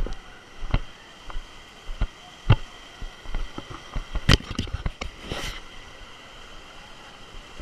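Irregular sharp knocks and thumps from someone clambering over rocks, over a steady faint background hiss. A brief rushing noise comes about five seconds in.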